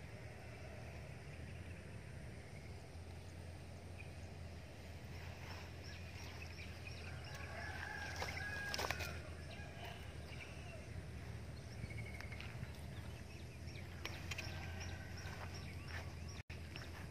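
Bird calls over a steady low background hum: a cluster of short calls about eight to nine seconds in, with a few fainter ones later.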